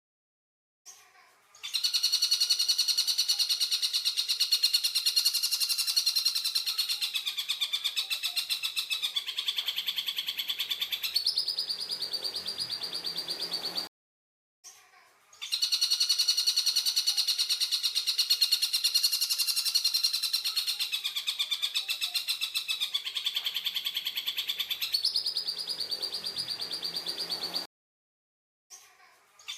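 Tengkek buto bird giving a harsh, rapid trilling call: a long buzzing rattle of about twelve seconds that dips in pitch partway and ends on a higher, steadier trill, then cuts off abruptly. After a short gap the same phrase repeats identically, looped as a training (masteran) recording.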